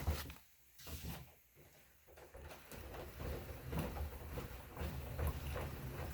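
Assault Runner Elite curved manual treadmill creaking: a couple of separate knocks, then from about two and a half seconds in a steady rhythm of creaks and knocks, one with each footfall, over a low rumble of the slat belt. The creak is an unwanted noise from the machine.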